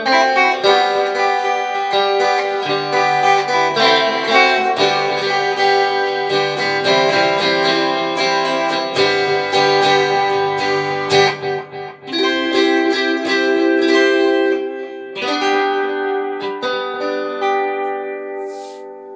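Guitar playing the instrumental close of a song: quick picked notes and chords, with fresh chords struck at about twelve and fifteen seconds. A last chord rings out and fades near the end.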